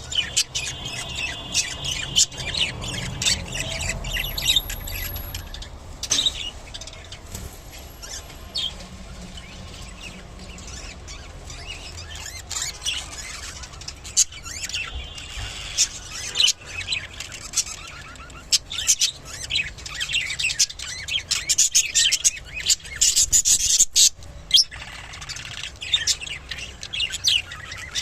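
Budgerigars chirping and chattering in quick, sharp calls, busiest in the last third.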